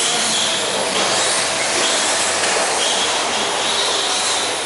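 Several 1/10-scale electric RC stadium trucks racing around the track, their motors and drivetrains giving a high whine that swells and fades as they pass, over a steady hiss.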